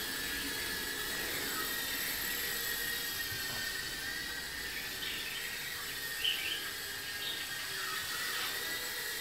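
Team BlackSheep Tiny Whoop Nano micro FPV quadcopter in flight, its tiny motors and ducted props making a steady high whine that wavers a little in pitch as the throttle changes. A brief high chirp stands out just past the middle.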